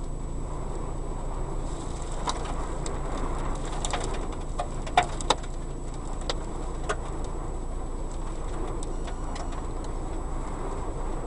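Strong wind rumbling steadily on the microphone, with scattered sharp clicks and knocks, two louder ones in quick succession about five seconds in.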